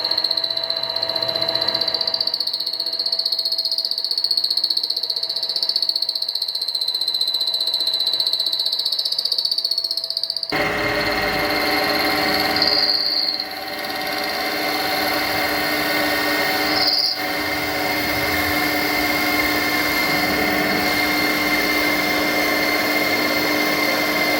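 Angle grinder cutting through aluminium with a steady, wavering high-pitched screech. About ten seconds in it gives way abruptly to a fuller, steady machine hum, broken by two short screeches.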